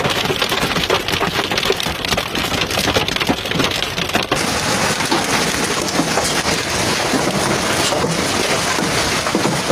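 Heavy hailstorm: a dense, loud clatter of hailstones and rain pelting the ground, parked cars and other surfaces. The sound changes abruptly a little over four seconds in and then carries on just as dense.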